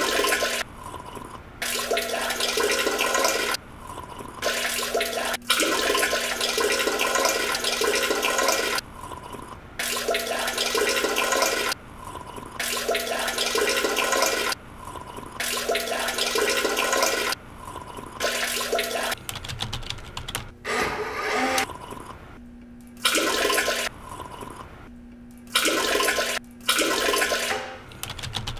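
Toilet flushing: rushing water with a steady hum underneath, cutting in and out abruptly over and over, in stretches of one to three seconds.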